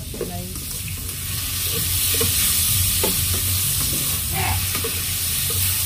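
Diced chicken sizzling steadily as it browns in an enamelled pot, stirred now and then with a wooden spatula.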